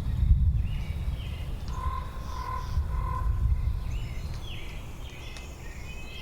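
Outdoor nature ambience: birds calling with short high chirps over a steady low rumble, with three short even notes in a row about two seconds in.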